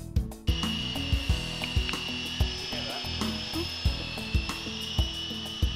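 Walkera 38# CH-46 twin-rotor electric RC helicopter in flight, its motors and rotors making a steady high whine and buzz. Background music with a steady beat plays underneath.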